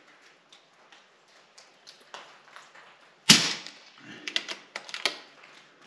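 A single shot from a KalibrGun Cricket II .22 PCP bullpup air rifle, a sharp crack a little past three seconds in, followed by a quick run of clicks as the side lever is worked to cock it and index the next pellet from the rotary magazine.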